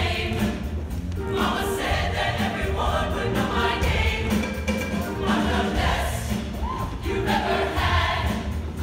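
Show choir singing in full voice over an instrumental backing with a strong, steady bass.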